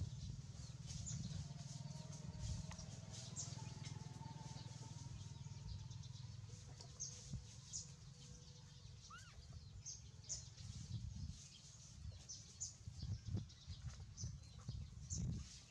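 Faint chirping of small birds, many short high chirps scattered throughout, over low rumbling with a few soft bumps in the second half.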